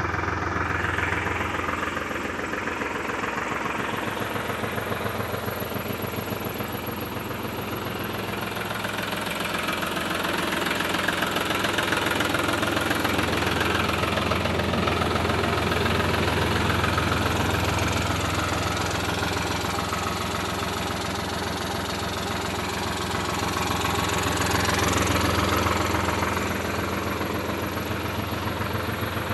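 Sonalika S50 tractor's three-cylinder water-cooled direct-injection diesel engine running steadily, swelling a little louder at times.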